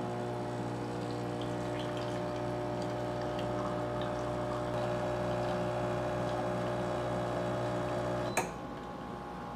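A Breville automatic espresso machine's pump hums steadily as it brews a double espresso. About eight seconds in there is a sharp click and the pump cuts off, ending the shot.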